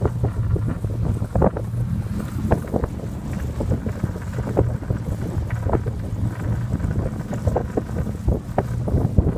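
Wind buffeting the microphone over the steady low rumble of a pickup truck driving along a road, with frequent irregular clicks and knocks.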